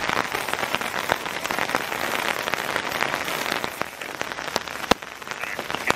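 Steady rain falling, with many single drops tapping sharply close by and one louder tap about five seconds in.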